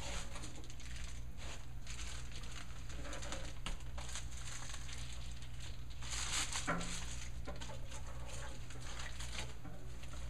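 Radiant-barrier foil bubble wrap rustling and crinkling in irregular bursts as it is handled, loudest a little past the middle, over a steady low hum.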